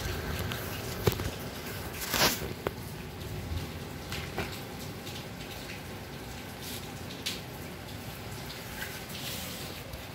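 Kittens playing with a fabric strap on a tiled floor: scattered light taps and scuffs, with a brief swish about two seconds in, over steady low background noise.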